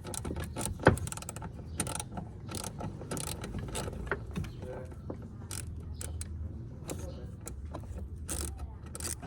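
Irregular clicks, ticks and small metallic rattles of hand tools and metal parts as a bolted-in part is worked loose.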